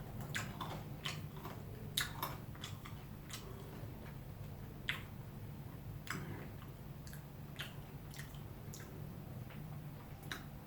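A person chewing food close to the microphone: soft, irregular wet clicks and smacks of the mouth, spaced a second or so apart.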